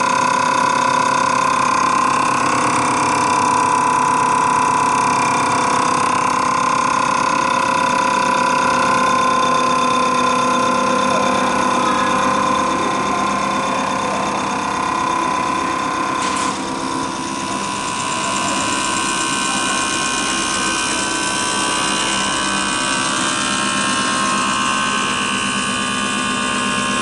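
Common rail injector test bench running, its motor-driven high-pressure pump humming with a steady whine and a rapid ticking from the diesel injectors being fired. About two-thirds of the way through the whine cuts off with a short click and the bench settles into a different steady drone.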